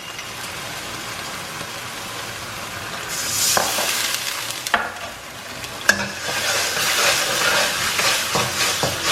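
Onions and green chillies with sauces and vinegar sizzling in hot oil in a pan while being stirred. The sizzle grows louder about three seconds in, with a few sharp taps of the spatula on the pan.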